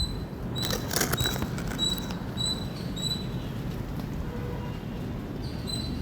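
Squirrel calling with short, high chirps at about two a second, breaking off for a couple of seconds before one more chirp at the end. A few sharp clicks come about a second in, over a steady low background rumble.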